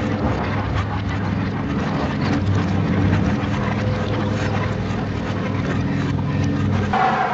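Reversed musique concrète horror-film score: a low, layered drone with scattered clicks, shifting to a higher ringing tone near the end.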